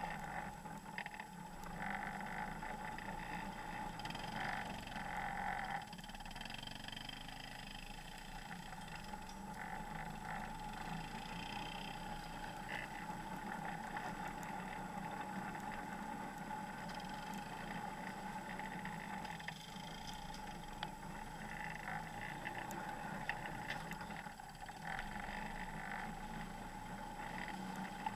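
Off-road vehicle engine running steadily under way, with a constant whine. It grows louder for a few seconds near the start and again near the end.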